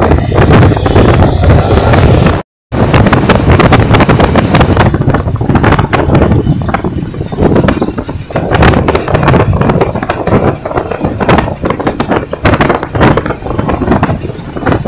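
Motorcycle riding at road speed, with wind buffeting the microphone over the engine and tyre noise. The sound cuts out completely for a moment about two and a half seconds in.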